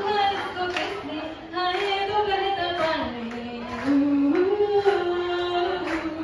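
A woman singing a slow melody unaccompanied into a handheld microphone, amplified in a large hall, with long held notes that slide between pitches and one long note held near the end.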